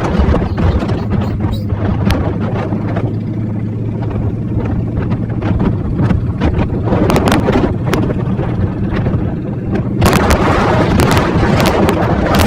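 Motorcycle engine running steadily while riding, with wind buffeting the microphone. The wind noise and crackling get louder about ten seconds in.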